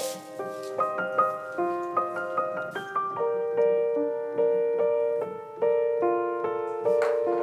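Background music: a gentle solo piano playing a melody of separate notes, with a brief soft hiss about seven seconds in.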